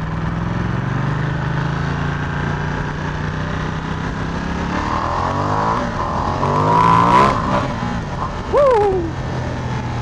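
Ducati XDiavel's 1262 cc V-twin engine pulling away and accelerating, its pitch rising in steps through the gears about halfway in, with wind rushing over the handlebar camera's microphone. A short falling chirp near the end.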